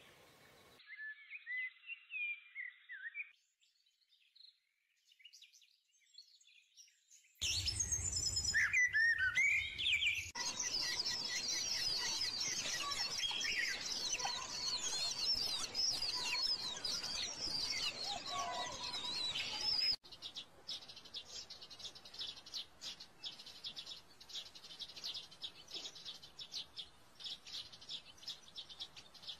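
Many small birds chirping and twittering, in stretches that cut in and out abruptly. The calls are densest for about ten seconds in the middle, then give way to a fast, repeated chattering.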